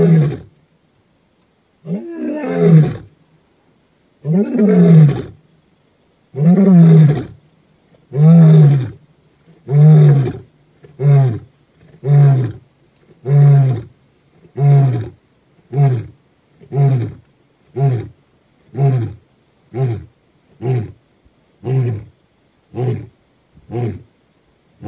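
Male lion roaring: a full roaring bout of about five long, loud roars, followed by a long series of short grunts that come about once a second, each shorter and quieter than the last.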